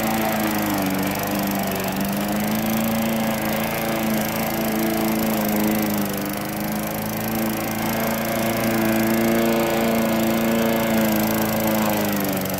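Poulan Pro push mower's single-cylinder Briggs & Stratton engine running steadily under load as it cuts tall, wet grass, its pitch dipping and recovering a little as it pulls through the thick growth.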